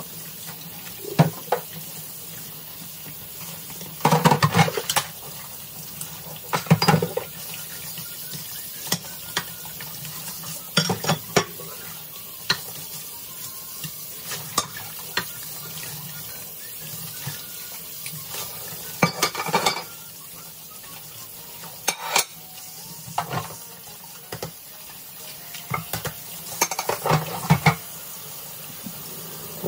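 Kitchen tap running into a stainless steel sink while dishes are washed by hand with a sponge, with irregular clinks and knocks of crockery against each other and the sink.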